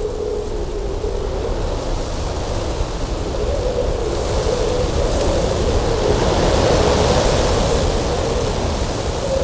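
Cold winter wind blowing hard with a low rumble and a wavering low whistle, swelling louder and hissier midway through, then easing slightly near the end.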